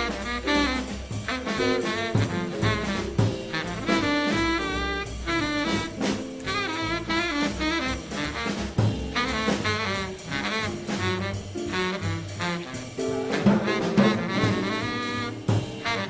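Small-group bebop jazz recording: a horn playing quick, winding melodic lines over upright bass and drums.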